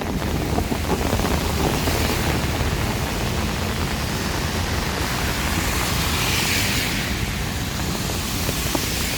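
Heavy rain pouring in strong wind: a steady rushing noise that swells briefly around six to seven seconds in.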